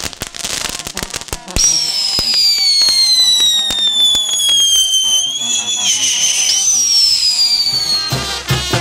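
Fireworks: a rapid string of firecracker pops, then a long high whistle that slowly falls in pitch for about six seconds while scattered pops continue. A brass band starts playing near the end.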